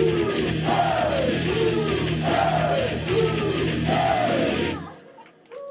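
Loud pop-rock song from a live idol performance, with a falling figure repeating about every second. About five seconds in the music cuts off suddenly as the song ends, leaving a short quiet gap.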